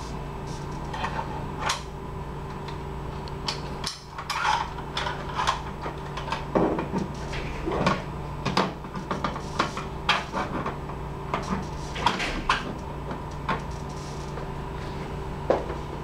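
Irregular plastic clicks and knocks as a toy pistol is handled and hung on a peg of a clear acrylic gun-lock panel, over a steady low electrical hum.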